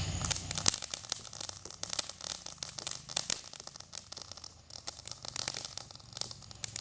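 A consumer firework crackling: a dense run of rapid, irregular small pops that thins out after a few seconds.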